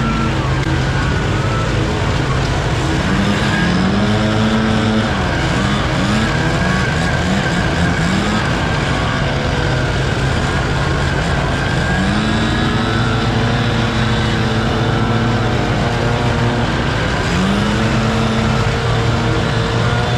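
Gas backpack leaf blowers running at full throttle, their engine pitch rising and falling as they are revved up and down, over the steady drone of a truck-mounted leaf vacuum.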